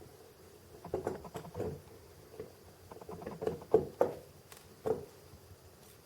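Small metal parts of a 1/50-scale diecast crane model clicking and tapping together as a cylinder is being fitted, in an irregular run of light clicks and knocks over about four seconds, the sharpest near the middle.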